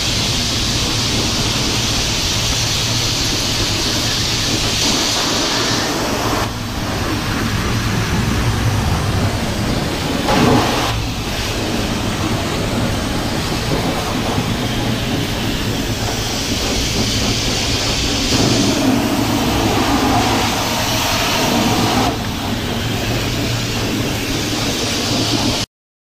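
A car-wash pressure washer wand blasting a jet of water over an engine bay: a steady hiss and splatter that rises and falls as the jet moves across the parts, over a low steady hum. It cuts off suddenly near the end.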